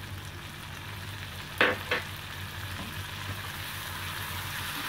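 Butter sizzling and bubbling in a frying pan as red chilli powder is stirred in with a wooden spatula. Two sharp knocks come close together about a second and a half in.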